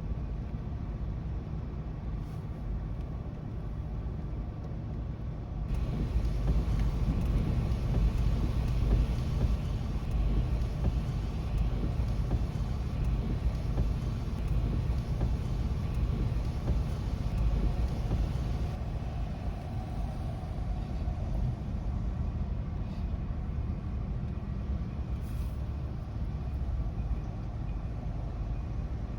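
Thunderstorm ambience: a steady low rumble under a hiss that grows louder and brighter about six seconds in and drops back after about nineteen seconds.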